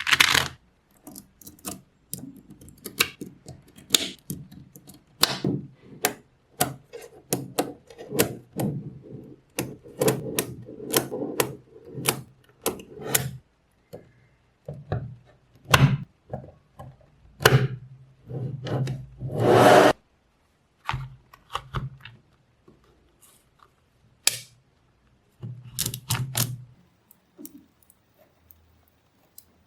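Small magnetic balls clicking as they snap together, in many sharp, irregular clicks, with stretches of balls rattling and rubbing against one another and one longer, louder rattle about two-thirds of the way in.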